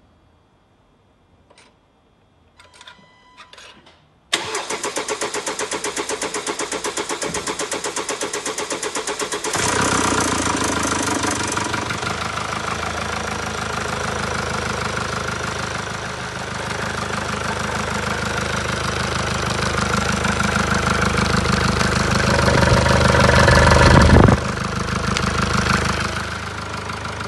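A 2018 Mercedes E-Class 2.0-litre four-cylinder diesel is started for the first time after a timing chain replacement. A few short beeps come first, then the starter cranks with an even beat for about five seconds before the engine catches and runs. Its engine speed builds over several seconds and drops back near the end.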